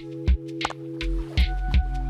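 Background music: a steady drum beat, about three hits a second, over held keyboard chords that change about two-thirds of the way in.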